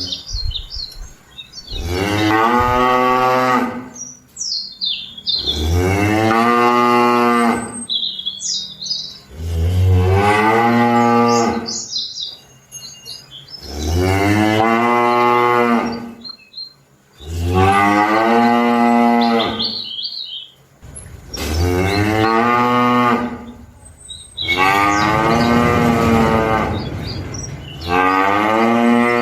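Cattle mooing: long, loud moos repeated about every four seconds, with small birds chirping in the gaps between them.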